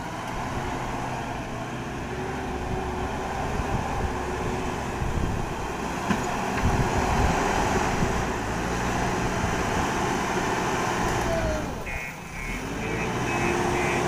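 JCB backhoe loader's diesel engine running steadily while digging river sand, with a few metallic knocks about six seconds in. Near the end a reversing alarm starts beeping, about two to three beeps a second.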